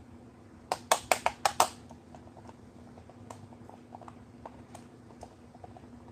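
A quick run of about six sharp clacks of hard objects being handled, about a second in, then faint scattered clicks over a steady low hum.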